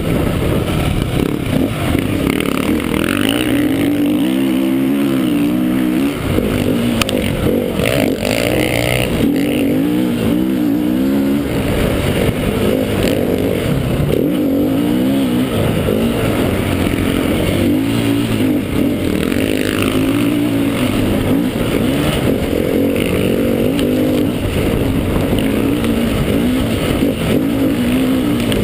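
KTM 350 EXC's single-cylinder four-stroke engine under hard riding, heard on board: the revs climb and drop again and again as the bike accelerates, shifts and backs off through the track.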